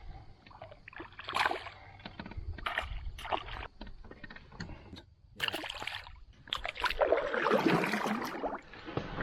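Sounds of a canoe on the water: scattered knocks of gear against the hull and splashing, with a longer rush of splashing about seven seconds in.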